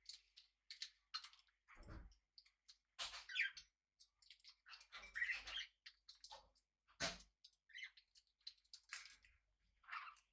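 Small pet parrots chirping softly among scattered short clicks and scratches, with no steady background.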